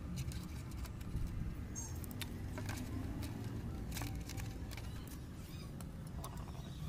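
Scattered light clicks and rustles of hands handling wires against the plastic body of a mixer grinder, over a low steady background rumble.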